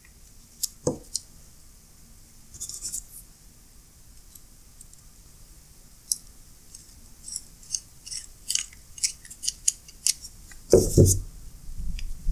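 Light, sharp metallic clicks and taps of a small screwdriver and tiny steel screws against a chrome ratchet head as the Loctite-coated back-plate screws are fitted, with a dense run of ticks in the second half. A couple of louder, duller knocks near the end.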